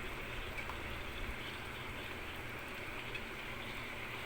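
Self-heating rice pot bubbling and hissing steadily as its heat pack keeps the beef curry boiling.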